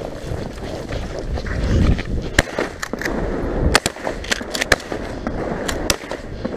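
Footsteps crunching through snow, then several shotgun shots fired in quick succession, the first about two and a half seconds in and the last near the end.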